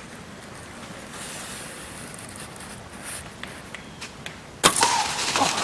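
Whitetail buck stepping through dry leaf litter with faint scattered rustles, then a sudden loud crash of leaves about four and a half seconds in as the buck bolts away.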